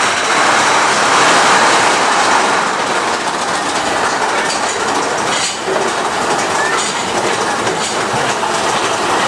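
Big Thunder Mountain Railroad mine-train roller coaster running along its track, heard from inside a riding car as a loud, steady rattle of wheels on rail.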